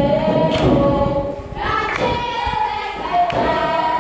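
Music: a choir singing long held notes over a drumbeat.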